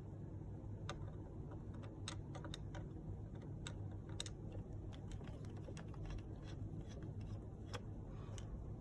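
Faint, irregular small clicks and ticks of a hand screwdriver working a screw at an electric scooter's handlebar brake lever mount, with hard parts knocking lightly as they are handled.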